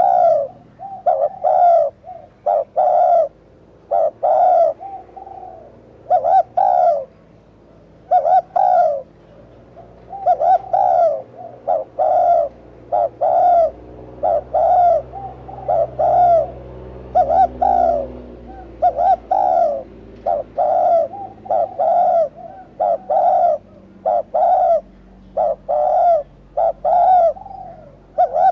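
Spotted dove cooing over and over: loud short coos in repeated phrases of two or three notes with short pauses between them.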